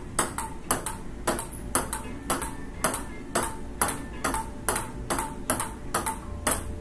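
Table tennis rally: the ball clicks back and forth off the paddles and a folding ping-pong table in an even rhythm of about three to four hits a second, with no miss or pause.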